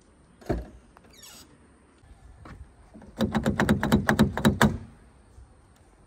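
A car's power accessory motor responding to a remote key fob: a whirring hum with a rapid rattle of clicks for about a second and a half, preceded by a single thump about half a second in.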